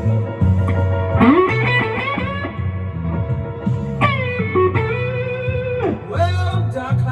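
Electric guitar playing a slow blues lead, with bent notes that rise and fall, over a steady bass line.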